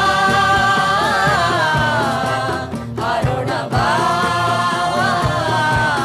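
Voices singing a slow theatre song in two long held phrases, with a short break about three seconds in, over low drum beats.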